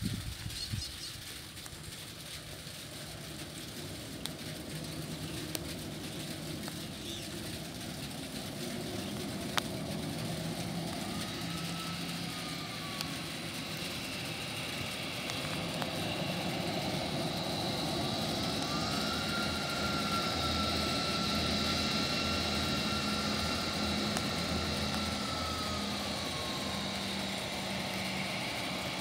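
Twin jet engines of an Airbus A320-family airliner running at low taxi power, the sound building slowly as the aircraft turns and taxis toward the listener. A whine rises and falls briefly about eleven seconds in, then rises again, holds steady and dies away shortly before the end.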